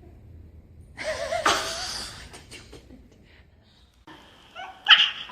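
A dog yipping in sharp, high-pitched yelps near the end, after a short burst of laughter about a second in.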